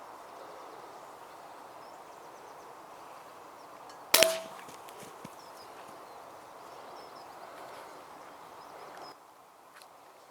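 A single air rifle shot about four seconds in: one sharp crack followed by a brief metallic ring, over a steady background hiss.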